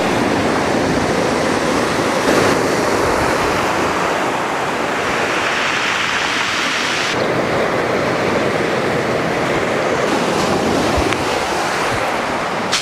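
Steady rush of sea waves breaking and washing ashore, with wind on the microphone. The noise shifts in tone about two and a half and seven seconds in.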